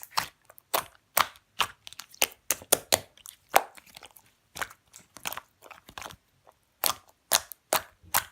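White pearl slime being squeezed and pressed by hand, making irregular sharp, wet clicks and pops, about two or three a second with short pauses between.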